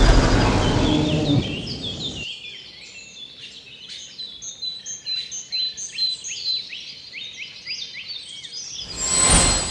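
Many small birds chirping and twittering in quick, overlapping calls. A loud rushing noise fades and cuts off about two seconds in, and a brief loud whoosh swells near the end.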